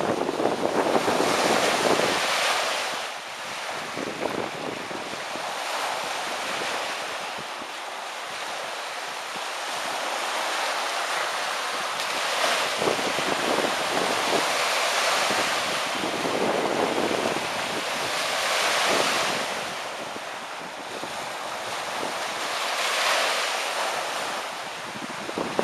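Lake Michigan waves washing in on the shore, a steady rushing hiss that swells and fades every few seconds, with wind buffeting the microphone in the first couple of seconds.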